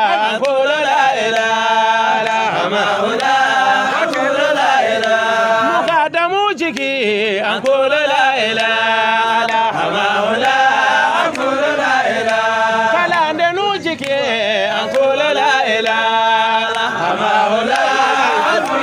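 A man chanting an Islamic devotional praise song, singing long, ornamented held notes that waver up and down without a break.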